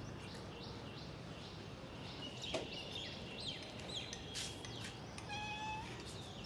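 Several cats meowing repeatedly in short, high calls, with one longer, steady meow about five seconds in.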